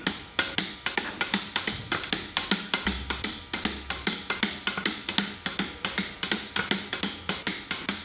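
Ratcheting torque wrench clicking steadily, about six or seven clicks a second, as the beadlock ring bolts are tightened in turn at a low torque setting.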